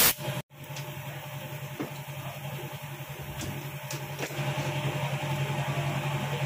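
Steady low machine hum, with a few faint light clicks as an Allen key works the end bolt of a carbon brake-lever guard on a motorcycle handlebar. A burst of noise cuts off at the very start.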